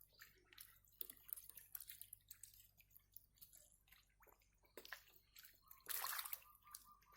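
Irregular small splashes and squelches of shallow muddy water, with a louder, longer splash about six seconds in.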